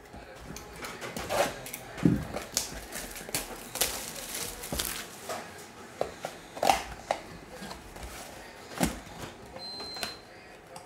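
Cardboard Topps Holiday Mega Box of trading cards being handled and torn open: irregular rustling, scraping and sharp crackles from the paperboard and its flaps, with a few louder snaps.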